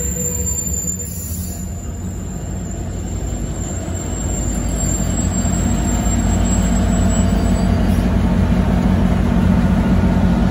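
Amtrak California passenger train rolling slowly along the platform as it comes in to stop, with a low rumble of wheels on rail. Its diesel locomotive's engine grows louder from about halfway through as the locomotive draws alongside. A thin high whine runs until about two-thirds of the way in, then stops.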